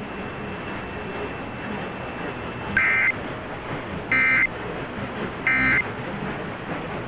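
Emergency Alert System end-of-message data bursts: three short, loud buzzing digital bursts about 1.3 seconds apart, marking the end of the alert, over the steady hiss of the broadcast feed.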